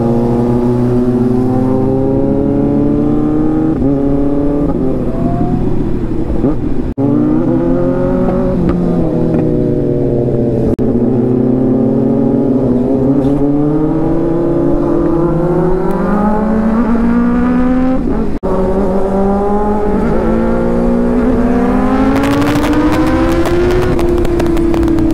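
Kawasaki ZX-6R inline-four sportbike engine running through a newly fitted aftermarket exhaust under riding load. Its note climbs in pitch as it revs and drops back with throttle and gear changes several times. Very loud.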